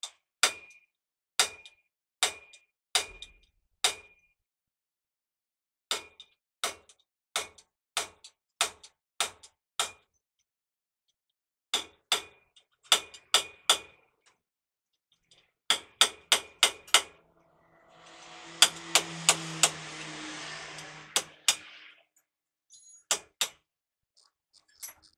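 Hammer blows on a truck's steel wheel hub, in runs of several ringing strikes under a second apart with short pauses between runs. About three-quarters of the way through, a rushing noise with a low hum sounds for a few seconds under the strikes.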